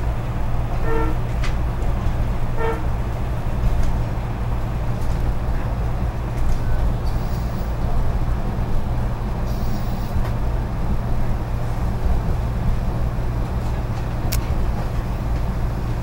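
Steady low rumble of a moving SEPTA electric commuter train heard from inside the passenger car, with two short toots of a train horn about one and two and a half seconds in.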